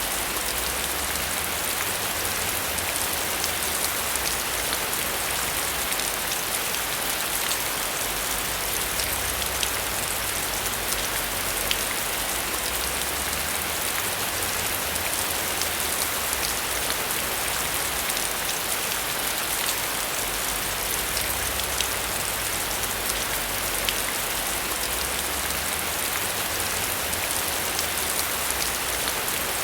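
Steady heavy rain: a dense, even hiss of rain with many single drops ticking through it, over a low rumble that swells and eases.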